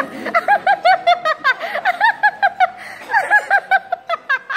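A woman laughing hard: a long run of rapid, high-pitched "ha-ha-ha" pulses, about five or six a second, with a brief catch of breath about halfway through.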